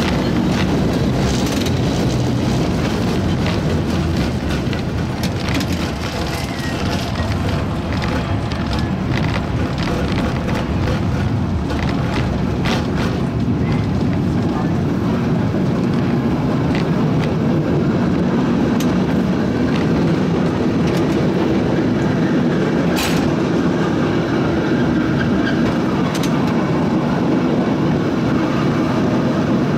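San Francisco cable car rolling along its track: a steady rumble and rattle, with scattered clicks and knocks, the sharpest about three-quarters of the way through.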